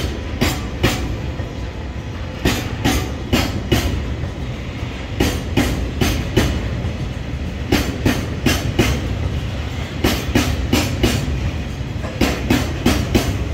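Taki 1000 oil tank wagons of a departing freight train rolling past at low speed: the wheels clack over a rail joint in clusters of about four, repeating roughly every two and a half seconds, over a steady low rumble.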